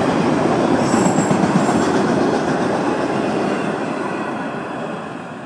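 Florida East Coast Railway freight train's rail cars rolling past at speed, a steady rumble of wheels on the rails. The noise fades over the last couple of seconds as the end of the train goes by.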